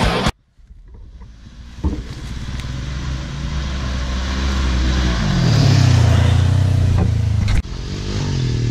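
Polaris RZR 900 side-by-side's engine growing steadily louder as it drives up a dirt trail, its pitch falling about two-thirds of the way through. Near the end it cuts abruptly to the engine of a four-wheeler ATV.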